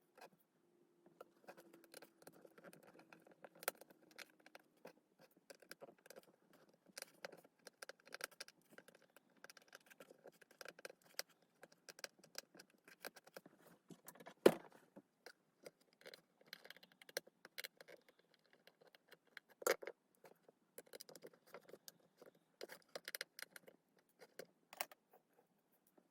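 Small metal tools and tiny screws clicking and scraping against a smartphone's frame as the phone is taken apart and its screws are removed. Scattered light ticks throughout, with a sharper tap about halfway through and another a few seconds later.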